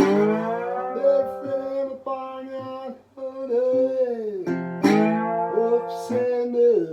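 Acoustic guitar playing a blues instrumental passage, with notes that glide down in pitch several times.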